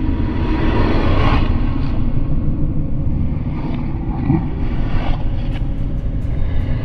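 Dark ambient rumble: a steady deep drone with swells of wind-like hiss, the hiss rising about a second in, and a few faint clicks near the end.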